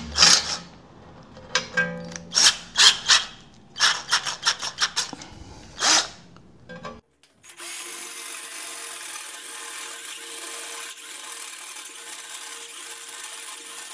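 A string of sharp clicks and knocks, then, from about halfway, a 12 V cordless drill running steadily as it bores a 2.5 mm steel plate with a step drill bit.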